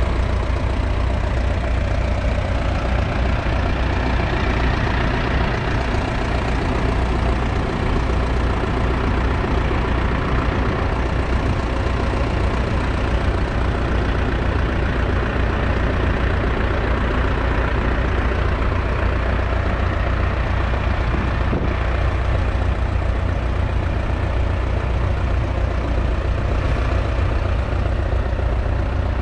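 1963 McCormick IH B414's 2.5-litre four-cylinder diesel engine idling steadily.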